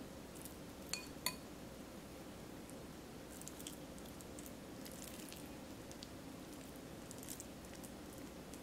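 A metal spoon clinks twice against a ceramic bowl about a second in, ringing briefly, then soft squishing and scraping as the spoon packs ground-pork filling into slit pieces of fried tofu. A faint steady hum runs underneath.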